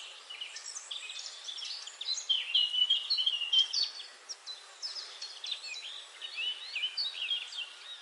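Several birds chirping and calling together, a busy run of short high notes, loudest about two to four seconds in.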